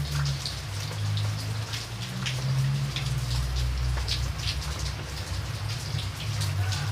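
Rain falling, with irregular individual drops pattering and dripping onto a surface over a steady low rumble.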